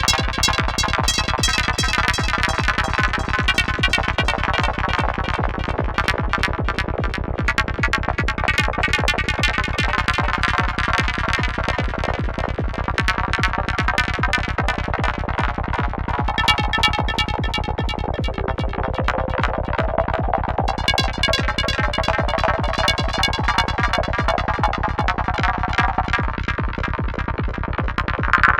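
Psytrance groove from a VCV Rack modular synth patch: a fast, steady low pulse of kick and rolling bass under shifting, warbling synth effects in the upper range, which change character partway through.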